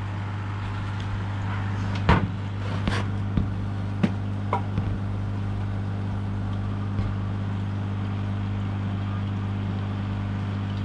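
Steady low electrical hum of an aquarium's filter pump, with several light knocks or clicks, the loudest about two seconds in.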